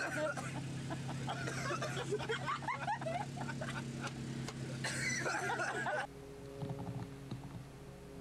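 Indistinct voices with some laughing over a steady low hum. About six seconds in it cuts off abruptly to a much quieter passage with a few faint steady tones.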